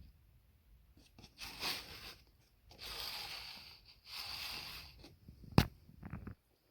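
Handling noises: three short rustling bursts, then a sharp click followed by a couple of softer knocks.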